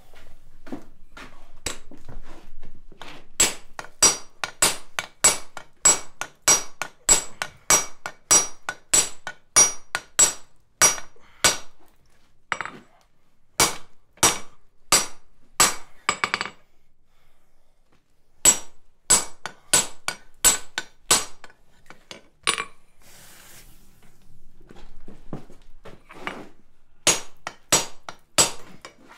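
Hand hammer striking the glowing end of a carbon-steel rod stood on an anvil, about two blows a second with a bright ring, upsetting the end to widen it into a chisel blade. The hammering comes in three runs, breaking off twice for a second or two.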